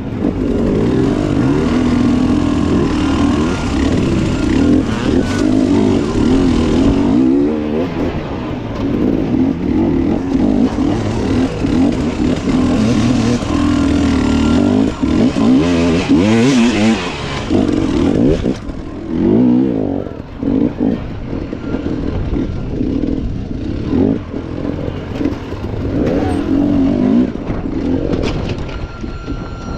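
Enduro dirt bike engine revving hard and pitching up and down on and off the throttle.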